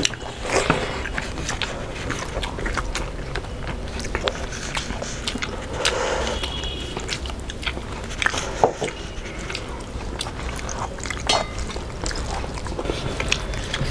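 Two people eating with their hands: chewing and mouth smacks with many short, sharp clicks, and fingers squelching through rice and curry on a banana leaf.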